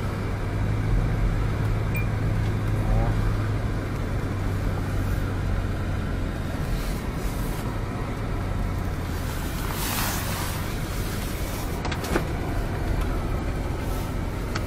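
Car engine running with tyre and road noise, heard from inside the cabin as the car drives slowly on a snow-covered road; a couple of sharp clicks near the end.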